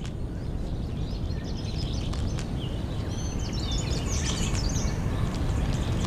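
Forest ambience: a steady low rumble with many small, high bird chirps through the middle seconds.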